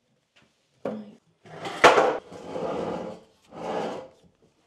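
Wooden Wickes folding loft ladder being opened out and lifted into place: a knock about a second in, a sharper, louder wooden knock near two seconds, then wood rubbing and scraping twice as the sections are handled.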